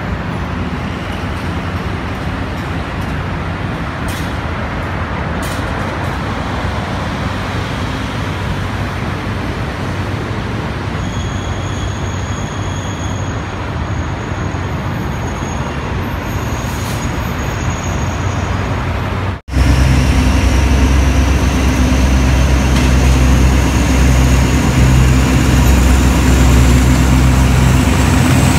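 Alsthom diesel-electric locomotive of the State Railway of Thailand approaching with a passenger train, its diesel engine running. It is a distant rumble at first. After a cut about two-thirds in it is loud and close: a heavy low engine drone with a high whine slowly rising in pitch.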